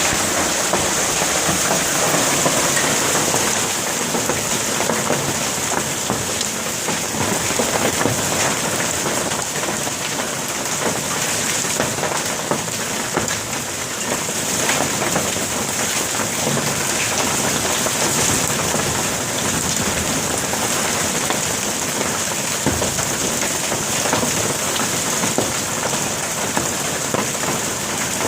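Hail and rain pelting down in a dense, steady clatter, with many sharp individual strikes of hailstones hitting hard surfaces.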